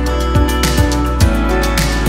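Background music with a steady beat of low drum thumps about twice a second under sustained chords.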